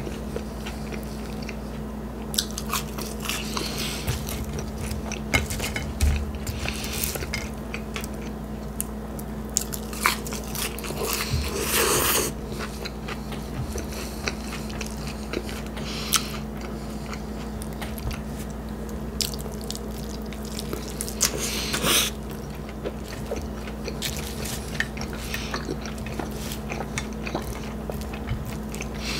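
Close-miked eating of a bacon cheeseburger and fries: a run of small clicking, crunching bites and chewing over a steady low hum, with two louder half-second noises, one about halfway and one about three-quarters of the way through.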